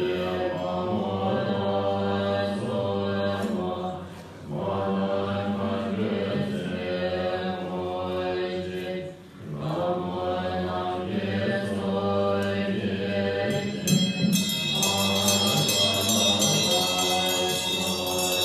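A group of voices chanting a Tibetan Buddhist liturgy in unison, in long held phrases that break briefly for breath about four and nine seconds in. About fourteen seconds in, a bright, fast-repeating high ringing joins the chant.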